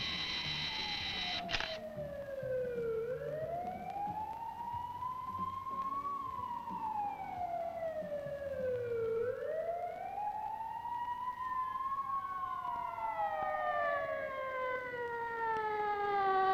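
A siren wailing, rising and falling slowly in pitch about every six seconds. Near the end the tone falls steadily and a second, lower falling tone joins it.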